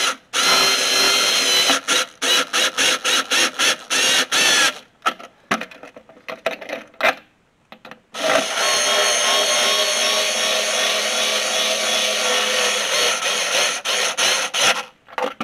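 Harbor Freight cordless electric screwdriver whirring as it drives stainless button-head bolts into the bracket. It runs in bursts and quick on-off blips for the first half, then runs steadily for about seven seconds.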